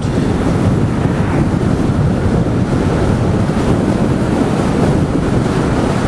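Wind buffeting the microphone of a camera on a moving e-bike: a loud, steady, deep rush of noise.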